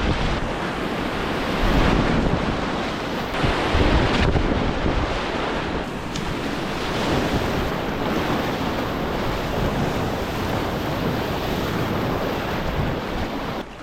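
Rushing whitewater, a steady dense noise of moving water, with wind buffeting the microphone.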